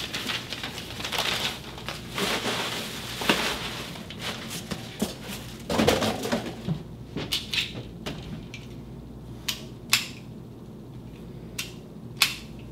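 Paper wrapping crinkling and tearing as a pistol is unwrapped. This is followed in the second half by several sharp clicks as the Rock Island Armory 1911 is handled.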